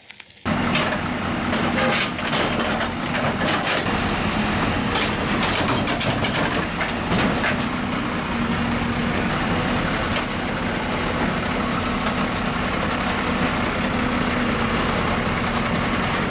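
Heavy road-works machinery running steadily: a constant engine drone with irregular clanks and rattles over it.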